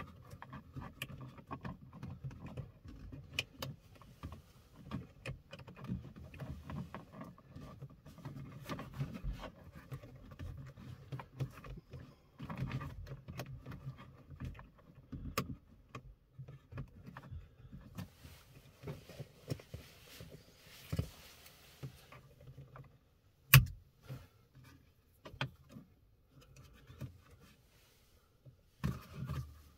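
Plastic wiring connectors and cable being handled and plugged together behind a car's rear-view mirror: scattered small clicks and knocks over a low rumble of handling, with one sharp click about three-quarters of the way through.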